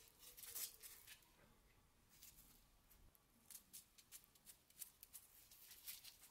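Faint crinkling clicks and rustles of nitrile-gloved hands handling a heavily rusted steel meat cleaver, gloves rubbing against the rough rust and the handle as it is turned. A cluster comes in the first second, then scattered clicks from about halfway.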